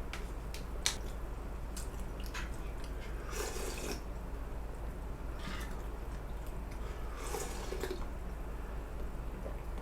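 Eating sounds: scattered light clicks of a spoon on a bowl, and two short slurps, about three and a half and seven and a half seconds in, over a steady low hum.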